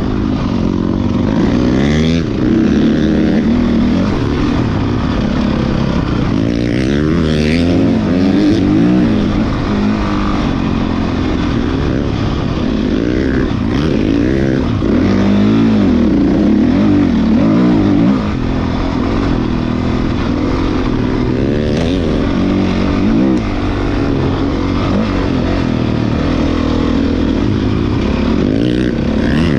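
Off-road motorcycle engines revving up and down as they accelerate and shift, several engines overlapping without a break.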